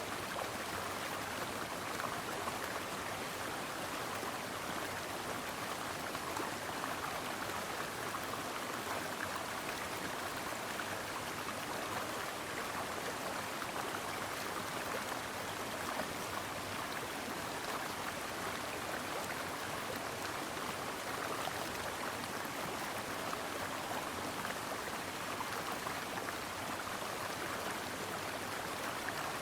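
Stream water flowing and babbling over rocks, a steady rushing with fine splashing.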